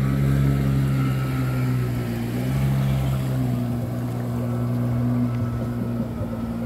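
Jet ski engine running with a steady low hum that shifts in pitch a few times as the throttle changes.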